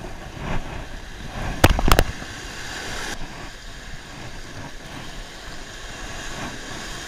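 Small surf washing up on a sandy beach, with three sharp knocks close to the microphone about a second and a half in.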